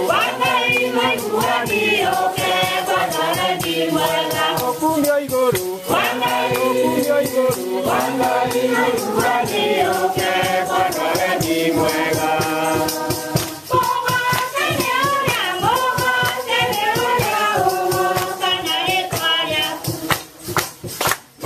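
A crowd of mourners singing a hymn together, many voices in harmony, over a steady rhythmic beat from shaken or clapped percussion. The singing breaks off briefly near the end.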